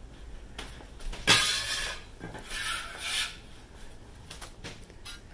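A utensil stirring and scraping diced apples through thick batter in a glass bowl, with a few scratchy strokes; the loudest starts sharply about a second in and a second follows around three seconds in.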